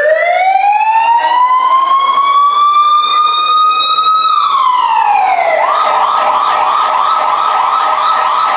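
Siren sound effect: a slow wail rising for about four seconds and falling away, then switching to a fast warbling yelp of about three to four pulses a second.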